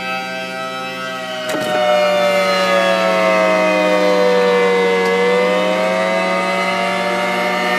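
Rotating outdoor warning siren sounding a steady multi-note tone. About a second and a half in, a knock is heard and the siren grows louder. Its pitch then sags over a few seconds and climbs back up.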